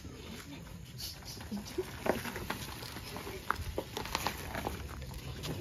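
Irregular clicks, knocks and rustling as people handle things in a car's open boot, over a low background haze.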